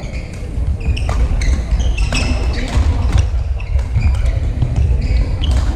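Badminton rally: sharp cracks of rackets hitting the shuttlecock and short high squeaks of shoes on the court floor, over a steady low rumble.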